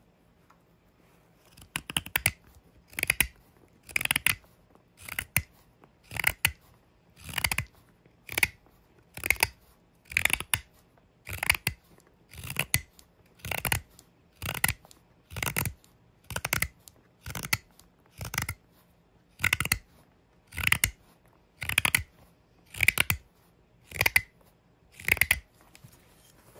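Mora 106 sloyd knife slicing shavings off an oak spoon blank in steady, even strokes, about one a second, starting about two seconds in.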